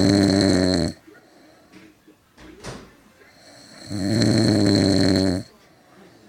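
A sleeping person snoring: two long, loud snores about four seconds apart, the first already under way at the start, with a brief soft click between them.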